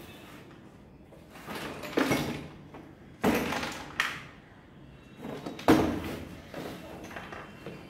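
Handling noise from unpacking a power drill kit: a run of sharp knocks and clacks with rustling between them, the loudest a little before six seconds in.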